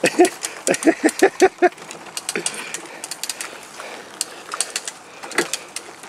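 A short burst of laughter, about seven quick pulses in the first second and a half, then light scattered clicking and rattling from the metal tow chain and the go-kart rolling over the pavement.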